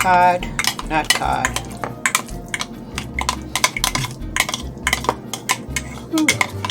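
A metal spoon stirring, scraping and clinking in a bowl, with many irregular clicks.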